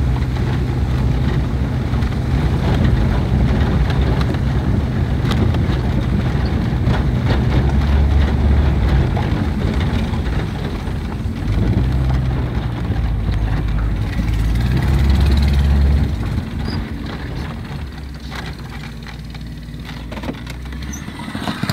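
Car engine and tyres on a gravel road heard from inside the cabin: a steady low rumble that quietens in the last few seconds.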